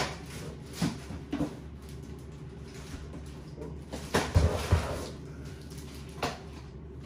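Knocks and rustling from handling an infant car seat and its parts: scattered light thumps, with the loudest cluster of three about four seconds in.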